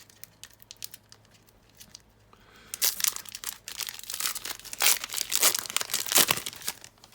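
Foil Pokémon booster pack wrapper crinkling and tearing as it is opened by hand. There are a few faint rustles at first, then a loud run of crinkling from about three seconds in, dying away near the end.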